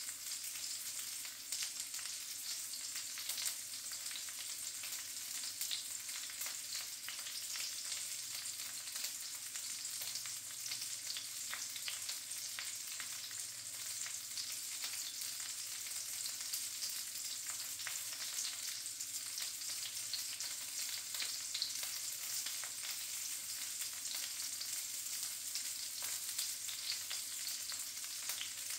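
Sausages frying in a pan on a gas stove: a steady high sizzle with frequent small pops and spits of fat.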